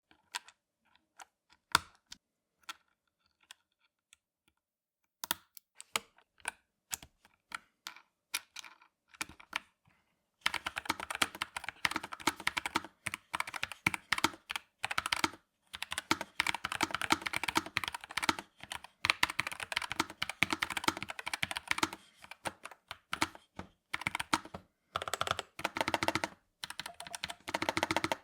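Typing on a NuPhy Air75 v2 low-profile mechanical keyboard with Cowberry switches: scattered single keystrokes at first, then fast, continuous typing from about ten seconds in, broken by brief pauses.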